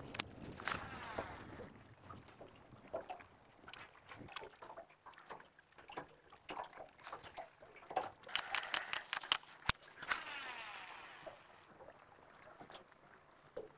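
Scattered light clicks and taps from a baitcasting rod and reel being handled and worked, with two brief hissing whooshes, one about a second in and one around ten seconds in.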